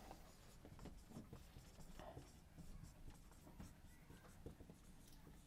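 Faint strokes of a dry-erase marker writing on a whiteboard: a run of short, soft scratches and taps as a word is written.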